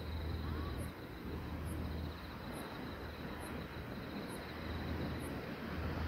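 Small sea waves washing on a sandy shore, a steady wash of noise that swells and eases, with a continuous insect trill over it and a low rumble underneath.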